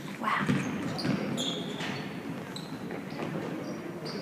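Shoes squeaking on a hard floor in several short, high squeaks, with a few dull thuds.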